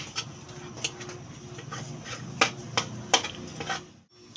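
Two metal forks clinking and scraping against a ceramic plate as cooked chicken breast is shredded: a few sharp clinks over a low background hum. The sound dips out briefly near the end.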